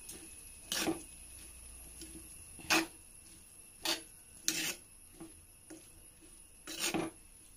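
Metal spoon scraping and knocking against the inside of an earthenware clay pot while stirring chopped beans and carrots: five separate scrapes, spaced a second or two apart.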